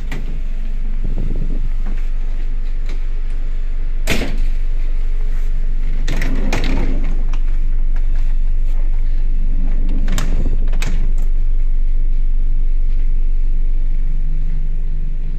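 ER2 electric train running, a steady low rumble with several sharp knocks scattered through it; a steady low hum comes in near the end.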